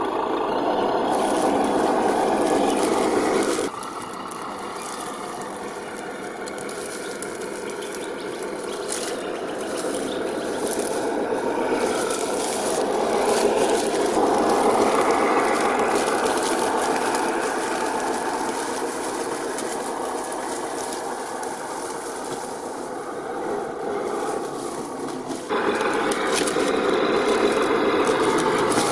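Brushed 550 electric motor and geared drivetrain of an HG P408 1/10 RC Humvee crawler, whining and clicking as it crawls slowly, with rattling and scraping from tyres and chassis on rocks and dry leaves. The level drops suddenly about four seconds in and jumps back up near the end.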